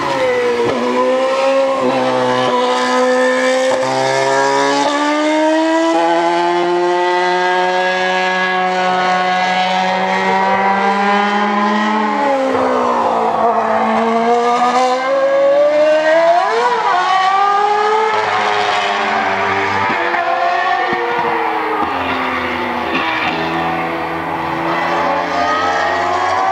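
2013 Formula 1 cars' 2.4-litre V8 engines running at high revs, the pitch climbing through the gears and falling away as the cars brake and pass, with a deep dip and climb about halfway through.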